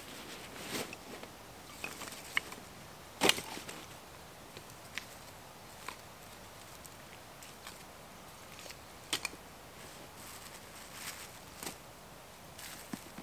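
Scattered light rustles and small knocks of gear being handled and set down on a canvas groundsheet over dry fallen leaves, with one sharper knock about three seconds in.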